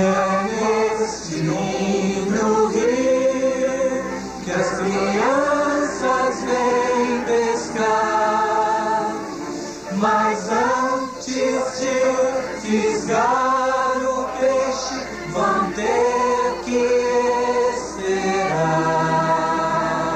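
A choir singing a melody over the cartoon's soundtrack music, the voices gliding up and down between phrases.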